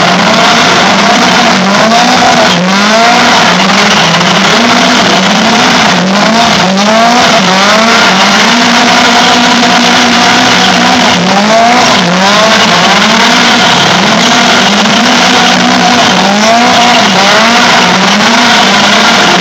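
Toyota AE86 Corolla coupe doing donuts, its engine revving up and falling back about once a second as the throttle is worked, over the noise of the spinning rear tyres. The sound echoes inside a large shed.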